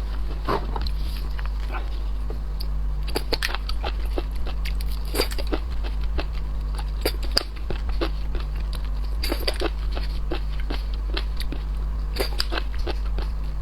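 Close-miked biting and chewing of shrimp, with many irregular crisp crunches and clicks of shell and flesh. A steady low hum runs underneath.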